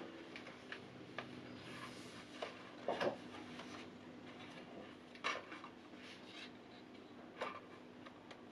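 Stiff paper flaps and pages of a large pop-up book being unfolded and handled: a few short rustles and taps, the loudest about three seconds in, over a faint steady hum.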